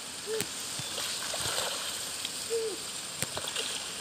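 A hooked hampala barb thrashing at the surface close to the bank, splashing and sloshing the water, with a few sharp clicks, the loudest about half a second in and again near the end.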